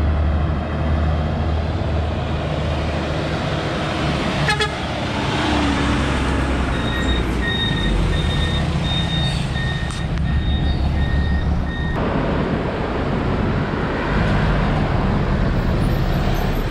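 Road traffic: vehicle engines rumbling steadily, rising and easing. In the middle, a high steady tone, broken by short gaps, sounds for about five seconds, and there is a sharp click about four seconds in.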